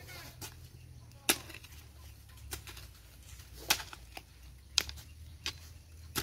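Hand hoe chopping into and dragging damp soil to cover a fertilizer trench: about eight sharp strikes at an uneven pace, the loudest about a second in.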